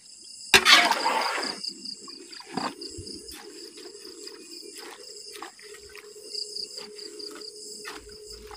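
A long-handled spatula stirring boiled water spinach in a large metal wok: a loud scrape and splash about half a second in, then lighter scrapes and knocks against the pan. Crickets chirp steadily behind.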